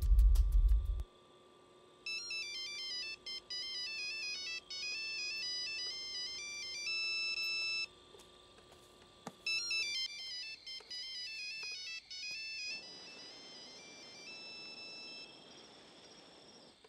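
Basic keypad mobile phone ringing with a bleepy electronic ringtone melody. It plays two phrases with a short break between them and stops a little under 13 seconds in, when the call is answered.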